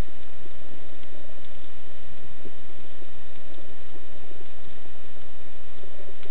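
Underwater ambience picked up by a camera inside a waterproof housing: a steady low hum with scattered faint ticks and crackles.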